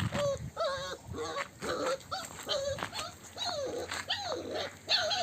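Puppies whining and yelping, a string of short high calls that overlap, some sliding up and down in pitch.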